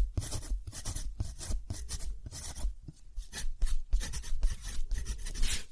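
Quick, repeated strokes rubbed across paper, about two or three a second, with light knocks of handling underneath: a drawing tool working on a sheet.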